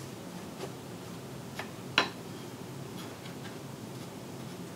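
A few light wooden clicks and taps as mitred picture-frame pieces are set down and pushed together on a wooden workbench, the sharpest about two seconds in.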